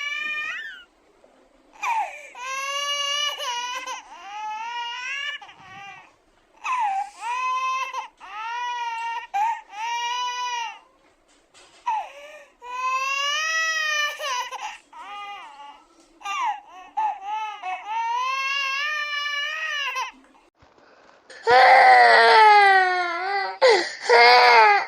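Baby crying in a string of high wailing sobs, each a second or two long with short catches of breath between, growing louder and more intense near the end.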